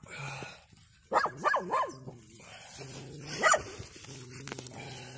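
A dog giving short, high barks or yelps: three in quick succession about a second in, then one more around three and a half seconds in.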